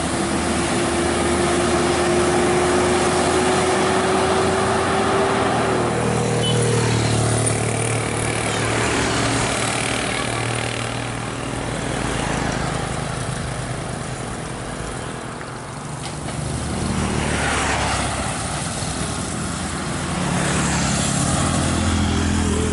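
Roadside traffic: heavy vehicles such as buses pass close by, with engines running and tyres hissing on the road, the sound swelling and fading as each goes by. A single steady tone holds for the first six seconds or so.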